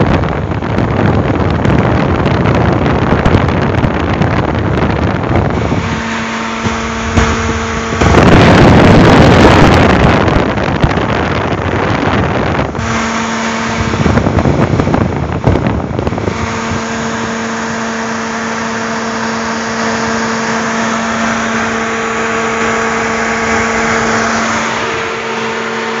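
Electric radiator cooling fan running in a 1997 Toyota RAV4's engine bay with the engine running: a steady rush of air with a low hum that comes and goes, the rush loudest for about two seconds around eight seconds in.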